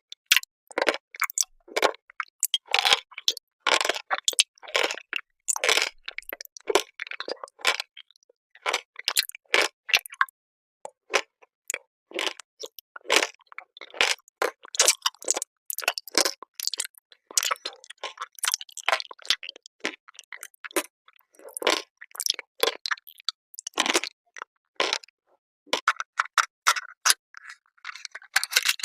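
Close-miked eating sounds: food crunched and chewed in quick, irregular bites.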